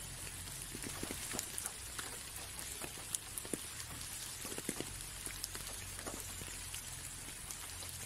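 Light rain on a window pane: a steady soft hiss with scattered, irregular taps of single drops, a few of them sharper.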